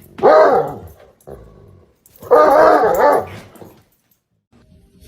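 A dog giving two long, loud calls, each rising and then falling in pitch: the first under a second, the second about a second and a half.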